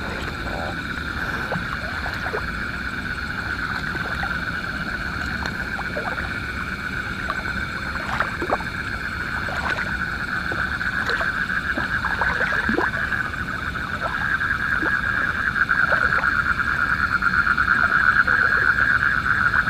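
Night chorus of frogs in a flooded rice paddy, a steady fast-pulsing trill that grows louder over the second half, with scattered short clicks over it.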